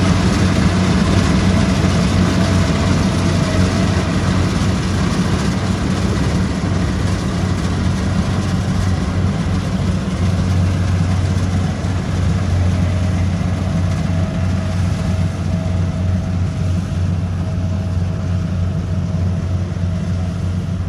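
Kubota combine harvester's diesel engine running steadily as it reaps ripe rice: a deep, even drone that grows slightly fainter as the machine moves away.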